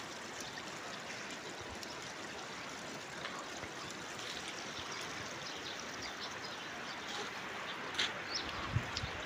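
Steady rushing of running stream water, with a sharp click about eight seconds in.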